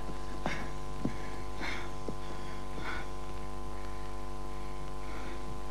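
Steady electrical mains hum, a buzz with a stack of even overtones, with a few faint short sounds over it.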